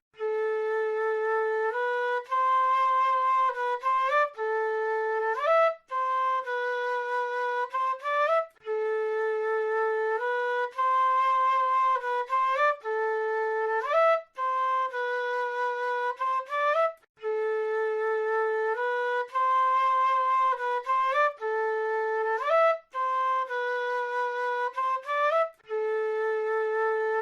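South American flute playing a slow melody: one short phrase of held notes with quick upward slides between them, repeated three times with brief breaks in between.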